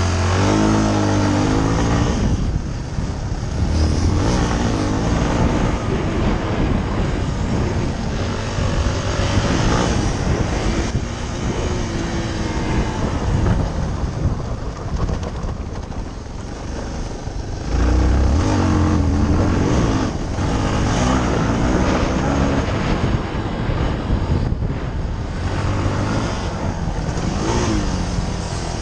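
Yamaha TT-R250 dirt bike's single-cylinder four-stroke engine under way, repeatedly revving up and dropping back through the corners, with wind rushing over the helmet-mounted microphone.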